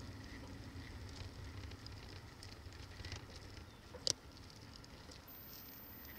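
Bicycle riding over rough pavement, recorded through a handlebar-mounted Cycliq Fly12 camera: a steady low rumble with scattered small rattles and ticks, and one sharper click about four seconds in.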